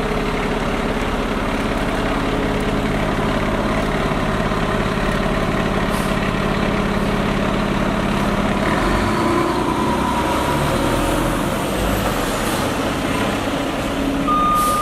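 Diesel engine of a Seagrave 95-foot tower ladder fire truck running as the truck pulls away and turns onto the road, its note changing about halfway through.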